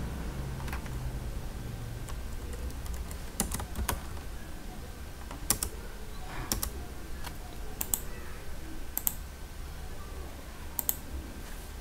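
Occasional single clicks of a computer keyboard and mouse, about eight spread out, over a low steady hum.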